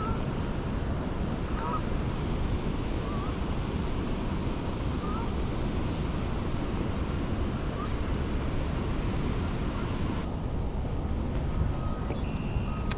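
Steady rushing noise of the high, fast-flowing creek together with wind on the microphone, with a few faint short chirps over it. A faint steady tone comes in near the end.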